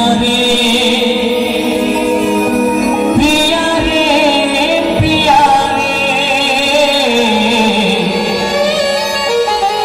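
Live Bengali baul song: a male singer sings long held, wavering lines through a microphone and PA, over sustained keyboard chords, with a few drum strokes.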